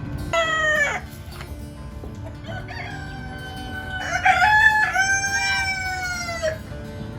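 A rooster crowing: one long drawn-out crow that starts about two and a half seconds in and is held for about four seconds before tailing off. Near the start there is a short, falling call under a second long.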